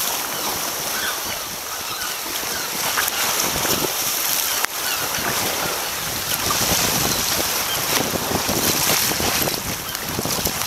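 Wind buffeting the microphone over choppy sea water sloshing and splashing around a sea kayak's bow, with waves washing against nearby rocks.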